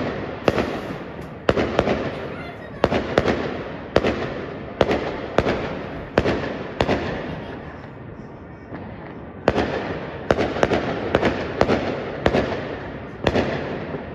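Aerial fireworks bursting: a steady run of loud, sharp bangs, each trailing off in an echo. They ease off for a couple of seconds just past the middle, then come thick and fast again.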